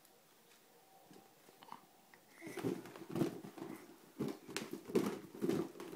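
A balloon being played with: a quick, irregular run of rubbery squeaks, bumps and scuffles starting about two and a half seconds in.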